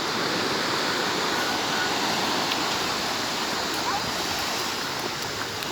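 A steady rushing noise with no clear source, holding level throughout, with a faint short chirp or two.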